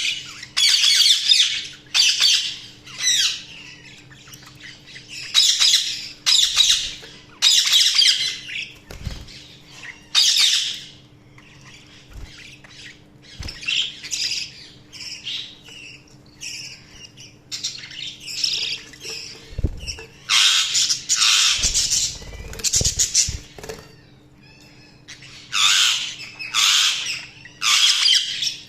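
Budgerigars chattering and squawking in repeated bursts, with short quiet gaps between clusters of calls; a few soft low thumps are heard among them.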